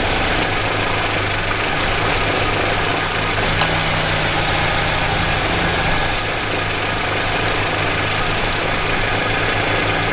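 BMW M44B19 four-cylinder engine idling steadily with the air-conditioning compressor engaged. A thin high whine fades out about three seconds in and comes back around six seconds.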